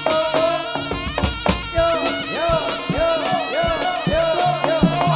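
Jaranan accompaniment music: a slompret (Javanese shawm) plays a nasal melody with scooping, bending notes over regular kendang drum strokes and sustained gong-chime tones.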